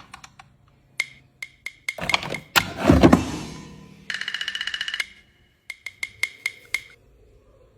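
Series of sharp wooden-sounding clicks and knocks, some heavier with a short ringing decay, and about four seconds in a quick even rattle of roughly a dozen strikes a second lasting about a second, followed by a few more light clicks.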